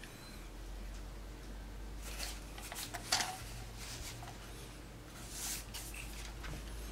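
Handling noise from an AR-15 pistol with a polymer M4-style handguard being turned in the hands: a few short rustles and scrapes, the loudest about three seconds in, over a low steady hum.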